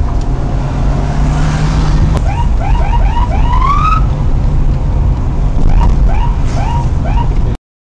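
Police car siren giving short rising yelps, five quick ones ending in a longer, higher sweep, then another run of five. This is the signal for a motorcyclist ahead to pull over. It sounds over the steady engine and road noise inside the patrol car, and all sound cuts out abruptly just before the end.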